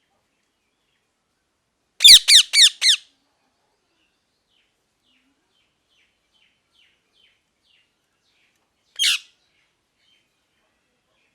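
Ringneck parrot giving four loud, harsh squawks in quick succession, each dropping in pitch, then a run of faint short chirps and one more squawk near the end.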